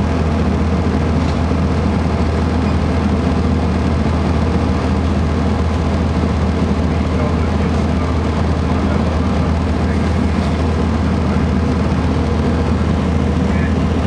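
Cummins ISC inline-six turbodiesel of a 2002 Blue Bird CS transit bus idling steadily with the bus standing still, heard from inside the passenger cabin as a constant low drone.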